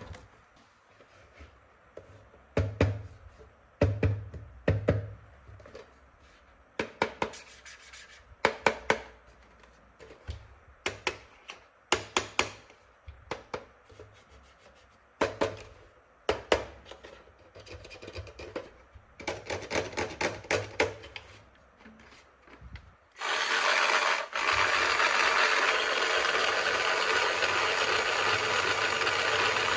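Hard plastic toy tool pieces handled and clicked together, in clusters of sharp clicks and taps. About 23 seconds in, a battery-powered toy power tool switches on and runs with a loud, steady buzzing whir.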